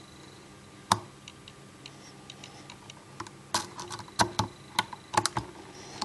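Metal triple-peak zipper rake worked in the keyway of a Master Lock Fortress padlock under tension, the pick and pins giving irregular metallic clicks: one sharp click about a second in, faint light ticks, then a run of louder clicks in the second half.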